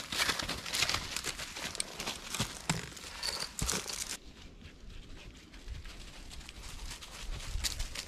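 Footsteps crunching and crackling through dry fallen leaves. The crackling is dense at first and turns to a softer rustle about four seconds in.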